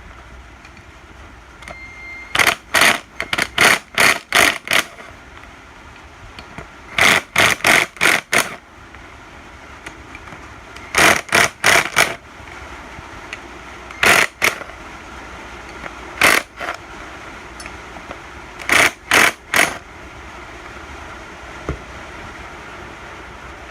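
Hand socket ratchet clicking in short runs of quick strokes, with pauses between, as the 8 mm clutch-cover bolts of a 2006 Yamaha YZ85 are loosened and backed out.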